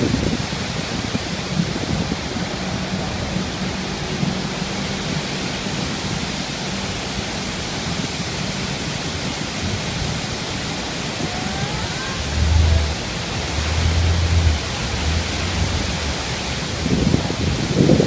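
The steady, loud roar of Iguazu Falls' cascades heard from a boat close below them, a dense even rush of falling water and spray. Low rumbling buffets come in about two-thirds of the way through.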